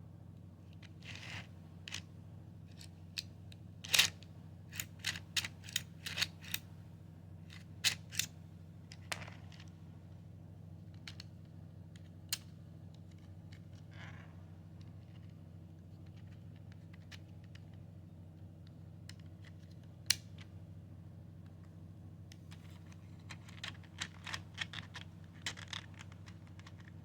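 Irregular sharp clicks and short scrapes of hard plastic parts being handled and pushed together on a 3D-printed hidden blade, busiest in the first ten seconds and again near the end, over a steady low hum.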